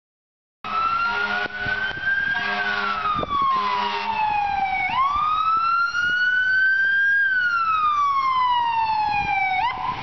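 Ambulance electronic siren on wail, cutting in abruptly about half a second in and sweeping slowly up and down in pitch, about two full cycles. A steady low hum runs beneath it for the first few seconds.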